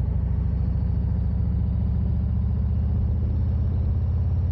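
Motorcycle engine running steadily while riding: a low, even drone with a rapid pulse.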